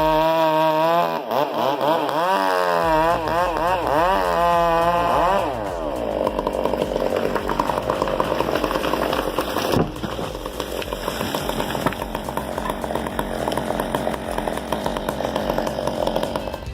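Two-stroke chainsaw revving up and down in quick swells for about the first five seconds, then running steadily with a rough, rattling note.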